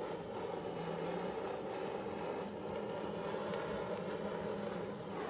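Handheld gas torch burning with a steady hiss, used to heat beeswax into the wood of a hive box.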